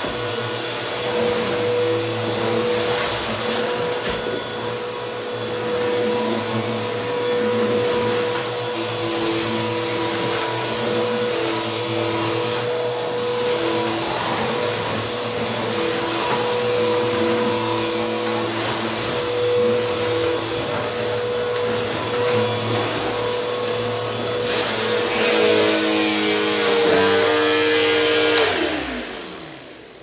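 Bissell CleanView upright vacuum running steadily on dirty carpet, its motor humming under an airflow hiss, with crunching of debris being sucked up. Near the end it is switched off and the motor's pitch falls as it spins down.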